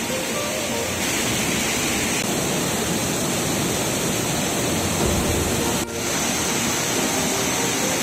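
Waterfall pouring over rock into a pool: a steady rush of water, with a brief dip about six seconds in.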